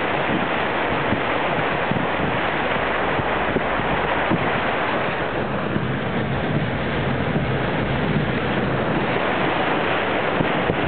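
Steady rushing noise of a car ploughing through deep floodwater in heavy rain, water washing against the car, with no clear breaks or single events.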